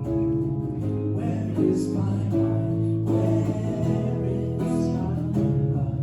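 Live band music with guitar and a strong bass line, held chords changing every second or so, recorded on a cell phone.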